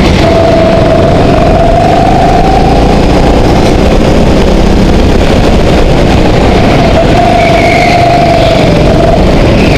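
Go-kart engine running hard on track, loud and close. Its whine climbs over the first couple of seconds, sinks back for a few seconds through the corners, then rises again.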